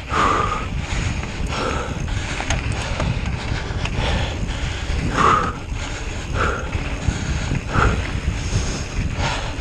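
A cyclist's heavy, laboured breathing: several loud breaths at uneven intervals. Under it run wind rushing on the microphone and the mechanical clicking of the bicycle.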